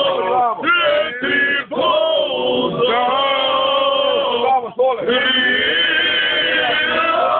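Men singing loudly together in long held, wavering notes, with a few short breaks between phrases.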